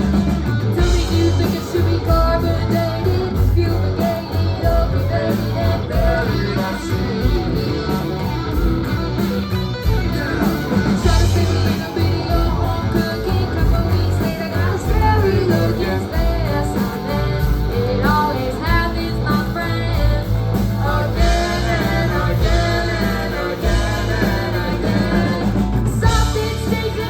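Rock band playing with electric guitar over bass and drums: an instrumental passage of a rock song.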